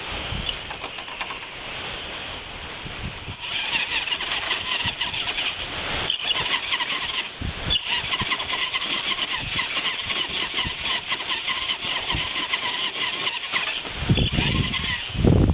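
RC rock crawler's electric motor and gear train whining as the truck crawls up a boulder, the pitch wavering up and down with the throttle. The whine starts about three and a half seconds in, and there is some low rumbling near the end.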